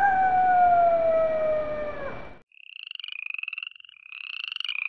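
A long animal call slides slowly down in pitch and cuts off about two and a half seconds in. High, rapidly pulsing trilled croaks of frogs follow.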